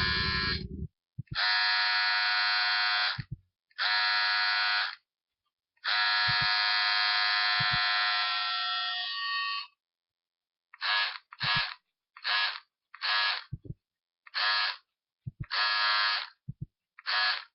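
A harsh buzzing tone with several steady pitches sounding together, switched on and off as notes to play a tune: a few long notes, then a run of short, evenly spaced ones. A low click comes as each note starts or stops.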